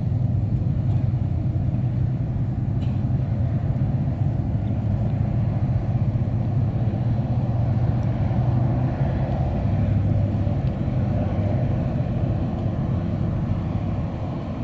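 Steady low rumble of a passing ship's engine.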